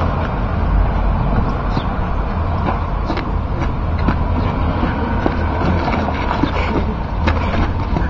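Steady low rumble of street traffic, with a few faint scattered clicks.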